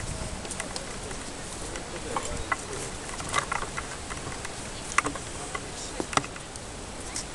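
Outdoor background hiss with scattered sharp clicks and taps at irregular intervals, the loudest about five and six seconds in.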